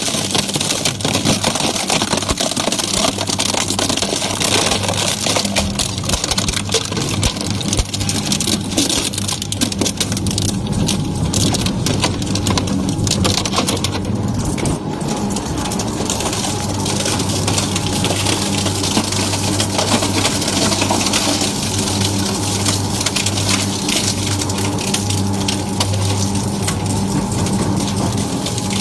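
Industrial shredder or crusher running under load, with a steady low hum under dense, continuous crackling and snapping as material is crushed.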